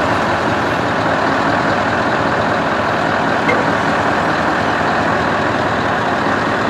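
Large diesel counterbalance forklift's engine running steadily as it lifts a heavy trailer chassis off a flatbed trailer.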